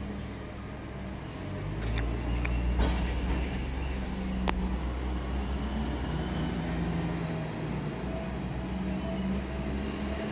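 Heavy diesel engine of freight-yard machinery running with a steady low rumble, with a few sharp metallic clicks in the first half.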